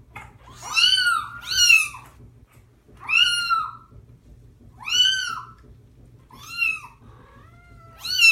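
Wet kittens meowing loudly and repeatedly in a bath, about seven cries, one every second or so, each rising then falling in pitch. The kittens are distressed at being bathed. A fainter, longer, lower call comes near the end.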